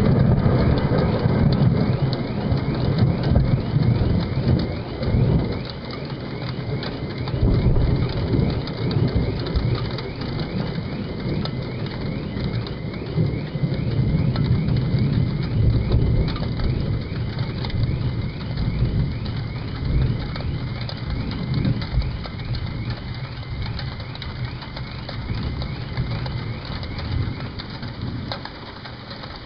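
Very loud thunder rumbling on after a crash, slowly fading over the half minute. A car alarm set off by the thunder warbles in repeated rising chirps through the first half.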